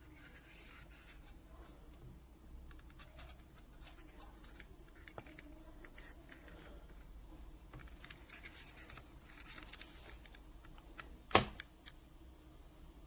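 Faint handling noise: light scratches, rustles and small clicks, with one sharp, much louder click about eleven seconds in.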